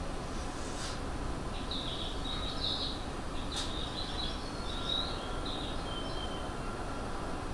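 Birds chirping in short, broken bursts over the steady hum of a stopped Seibu 30000-series train standing at a station. A single sharp click comes about three and a half seconds in.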